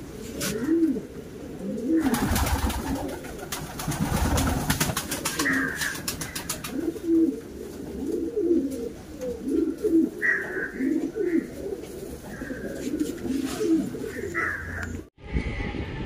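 Pigeons cooing over and over in short arched calls. A stretch of crackling and clicking runs from about two to five seconds in, and the sound cuts out briefly near the end.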